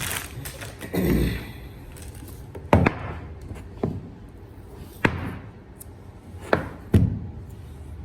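Product box and packaging being handled: a longer rustling thud about a second in, then a series of sharp knocks and taps, about five, spaced a second or two apart.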